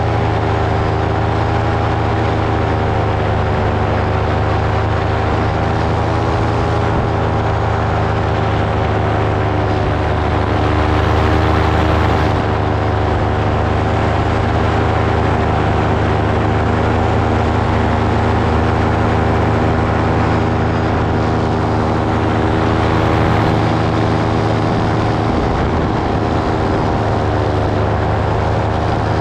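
Motor and propellers of the aircraft carrying the camera, running at a steady speed. The hum is even and loud, and its pitch wavers slightly.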